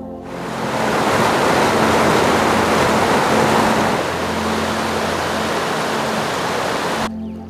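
Rushing mountain creek: fast white water tumbling over rocks, a loud steady rush that begins just after the start. About four seconds in it turns a little quieter as a smaller cascade pours over a jam of logs, and it cuts off shortly before the end.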